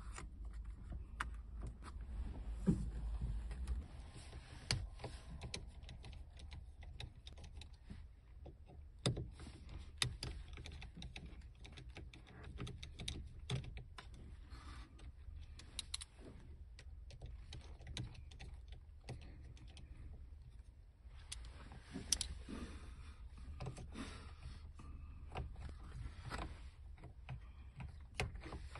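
Irregular small clicks, taps and rattles of a hand tool and plastic trim as the cruise control switch is unscrewed and worked loose from a Toyota Corolla steering wheel, over a steady low hum.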